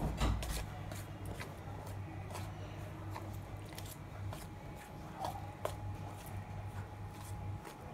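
Metal spoon stirring mostly dry gram flour with spices and a little water in a stainless steel bowl: irregular soft scraping and clicking of the spoon against the bowl.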